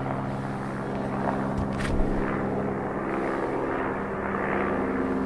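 A steady low drone made of several even tones over a soft hiss, with one light knock about two seconds in.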